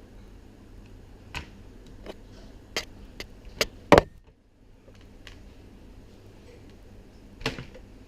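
A series of sharp clicks and knocks, about seven in all, irregularly spaced. The loudest is a double knock about four seconds in. They are typical of small plastic and metal parts and tools being handled during disassembly of a DJ CD player.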